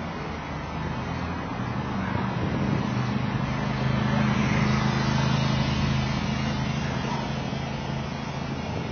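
City street traffic heard from a moving bicycle: a motor vehicle's engine hum swells around the middle and fades, over steady wind and road noise.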